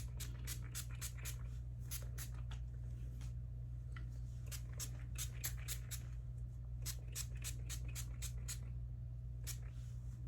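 Hair being styled, making a run of short, scratchy strokes in irregular clusters, over a steady low hum.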